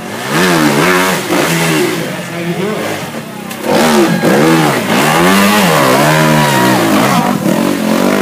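Dirt bike engine revving up and down again and again as it is throttled over logs in a muddy water crossing. Its tyres splash through the water about four seconds in.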